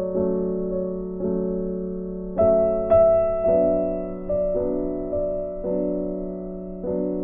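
Slow background piano music: soft chords struck about once a second and left to ring out and fade.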